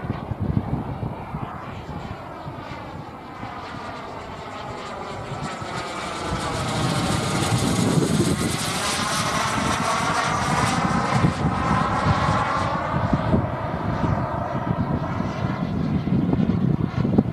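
Jet Munt 100 model gas turbine of a YT Pantera radio-controlled jet, whining in flight as the plane passes overhead. It grows louder from about four seconds in and is loudest through the middle, with the pitch sweeping as it goes by.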